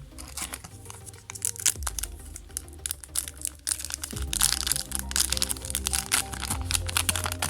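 Foil booster pack wrapper crinkling and crackling as it is handled and opened, with scattered clicks, growing denser about halfway through, over background music.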